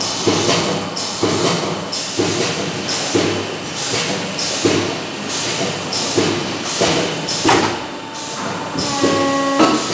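Factory machinery running with a regular beat of about one stroke a second, over a steady workshop din. Near the end a short steady tone sounds for under a second.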